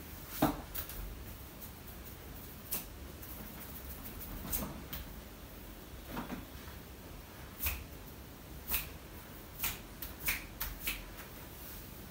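Hands massaging a bare back: irregular short, sharp skin slaps and clicks, about a dozen, spread unevenly through the massage strokes.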